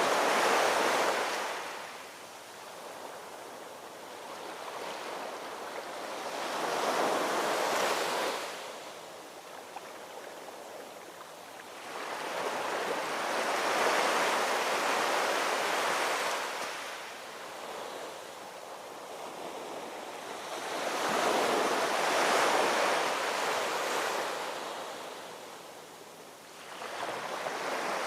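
Ocean waves washing onto the shore, four slow surges that swell and fade about every seven seconds, with a steady hiss of surf between them.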